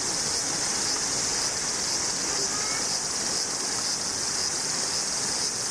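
Steady, unbroken high buzzing of summer insects.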